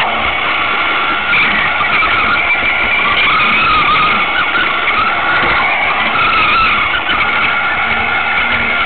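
Battery-powered Duplo toy train running: the small electric motor gives a steady whir whose pitch wavers slightly.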